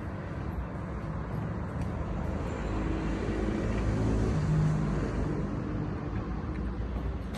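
Street traffic: a steady rumble of passing cars, swelling as one vehicle goes by about halfway through.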